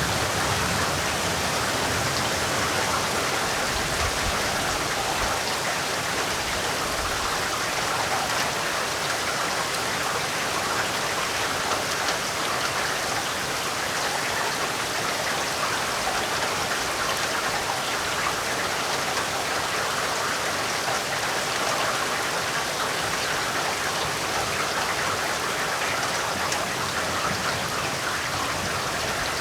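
Heavy rain falling steadily: a dense, even hiss of countless drops.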